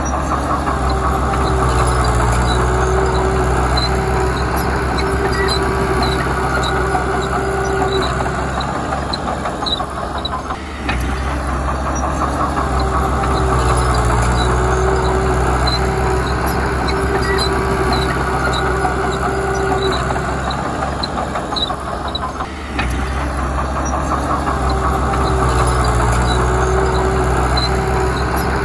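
Diesel engine of heavy earthmoving machinery running steadily, with a faint regular ticking over it. The sound dips briefly and builds again about every eleven seconds.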